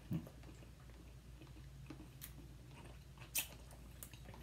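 Close-up chewing of a sticky peanut-butter taffy candy (Mary Jane): faint, with a few wet mouth clicks and smacks, the loudest about three and a half seconds in.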